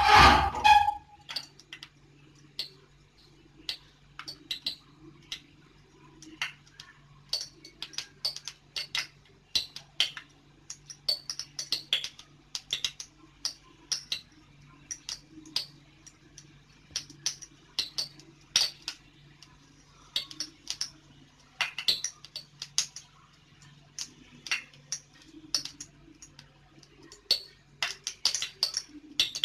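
Cooking oil heating in a flat pan (tawa) on a gas stove, crackling with many small sharp irregular pops as it gets hot, over a steady low hum. A louder knock sounds right at the start.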